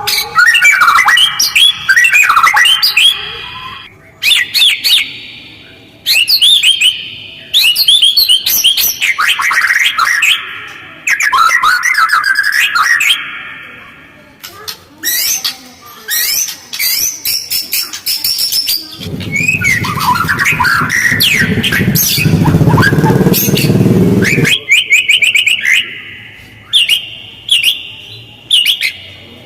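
White-rumped shama (murai batu) singing loud, fast, varied phrases with short pauses, mixing clear whistles with harsh, rapid chattering notes. Past the middle, a rough low noise runs under the song for about five seconds.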